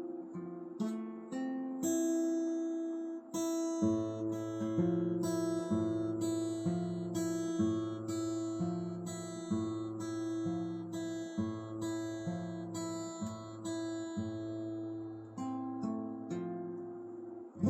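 Acoustic guitar playing a song's introduction, picked and strummed in a steady rhythm. A lower bass-note pattern comes in about four seconds in.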